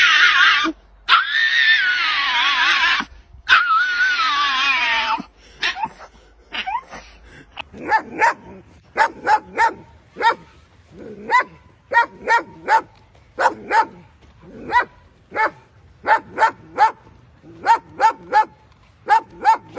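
A Boston Terrier gives three long, wavering, high-pitched cries. After a short pause, German shepherds bark in quick runs of short, sharp barks.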